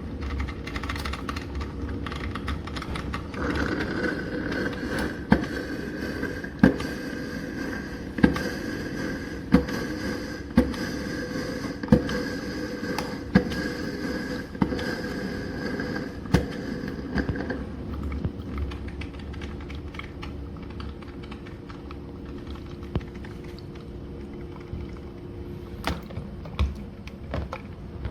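Black+Decker CM618 single-serve drip coffee maker brewing: a steady hum and hiss with sharp pops about once a second as its heater pushes water through. The hum eases and the pops thin out about 17 seconds in.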